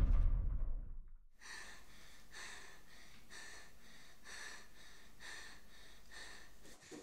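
A loud crash dies away over the first second. Then a frightened girl breathes hard and fast, with short, airy, gasping breaths about once a second.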